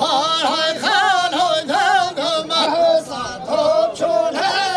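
Kurdish dengbêj singing: a man's voice, pitched high, singing a wavering, heavily ornamented melody in short phrases.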